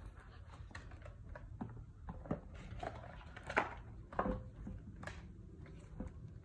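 A smartphone's cardboard retail box and its paper inserts being handled: scattered faint rustles, scrapes and small taps, the sharpest a couple of clicks about halfway through.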